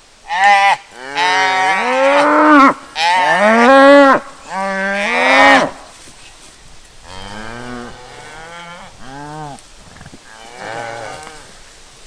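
Highland calf bawling loudly while it is caught and held, four calls in the first six seconds, each bending up and down in pitch. After that come softer, lower-pitched moos from the Highland cattle.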